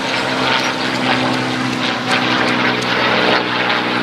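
Two Supermarine Spitfires flying past together, their piston engines and propellers giving a steady, even note.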